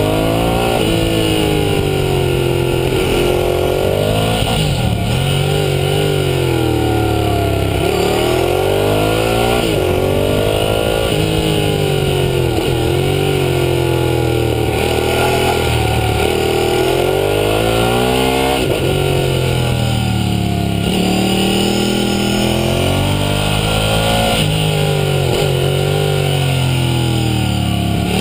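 Ducati Hypermotard 1100's air-cooled L-twin engine on track, its revs climbing and falling back over and over as the bike accelerates, shifts and slows for corners. Heard close up from a camera mounted low on the bike's belly.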